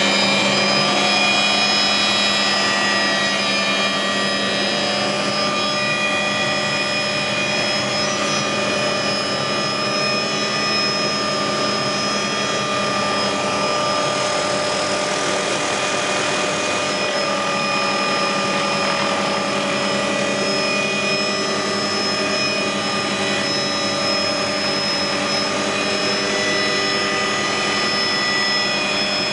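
Helicopter engine and rotors running, heard from inside the cabin as it takes off: a loud, steady drone with several steady whining tones. A rush of noise swells briefly about halfway through.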